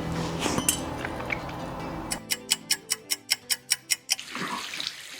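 A fast run of evenly spaced ticks, about six a second, over music, lasting about two seconds from around two seconds in.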